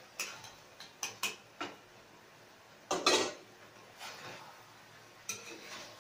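Metal utensil scraping and clinking against a metal frying pan while stirring chicken wings in adobo sauce: a string of short scrapes and clinks, the longest and loudest about three seconds in.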